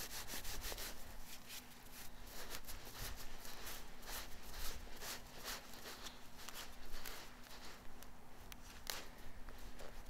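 Light, crisp rustling and crackling from hands crumbling dried herbs and sprinkling them over raw chicken pieces in a cast iron pot, in many short irregular bursts, with a faint steady hum underneath.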